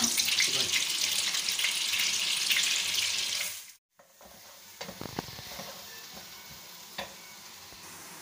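Butter melting in hot cooking oil in a nonstick wok, sizzling loudly. It cuts off abruptly a little before halfway, and a much quieter steady sizzle of chopped onions frying in oil follows, with a few light clicks.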